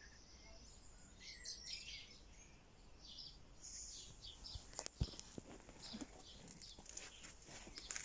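Faint, scattered chirps and calls of small birds, with a single sharp click about five seconds in.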